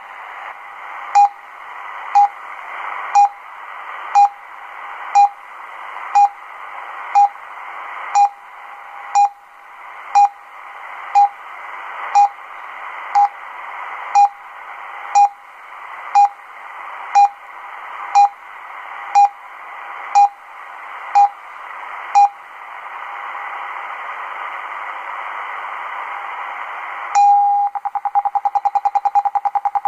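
RWM time signal on 9996 kHz shortwave from a Degen DE1103 receiver's speaker: short beeps once a second over shortwave hiss. The beeps stop about five seconds before the minute. Near the end a longer minute-marker tone begins a rapid train of ten pulses a second.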